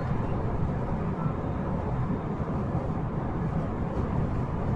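Interior running sound of a JR 223 series 5000-subseries electric multiple unit travelling along the line: a steady, even rumble of wheels on rail.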